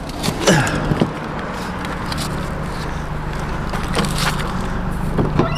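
A car engine running with a steady low hum, its pitch dropping and settling about half a second in, with scattered clicks and knocks.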